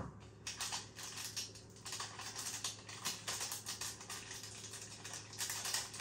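Small plastic seasoning sachet crinkling and rustling in the fingers as it is squeezed and emptied over a ceramic bowl, a quick irregular run of light crackles and ticks over a faint steady hum.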